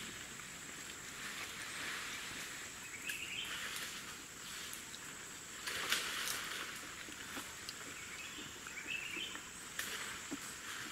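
Forest ambience: a steady high hiss of insects, with short bird chirps about three seconds in and again near nine seconds.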